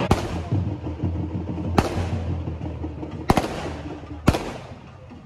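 Fireworks going off: four sharp bangs, roughly a second or more apart, each trailing off in an echo.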